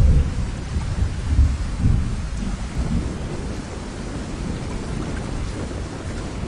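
Gusty wind rumbling on the microphone over a steady hiss of rushing floodwater, the strongest gusts near the start and about a second and a half in.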